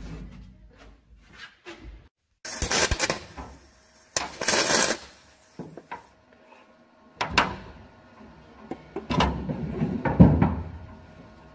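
Two short bursts of welding, each about a second long, as aluminium boat-frame pieces are tacked together. Several knocks of metal parts being handled and set in place follow.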